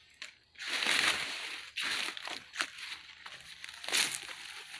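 Leaves and stems rustling and crunching as vegetation is pushed aside close to the microphone, in several uneven bursts, the loudest about a second in and another near the end.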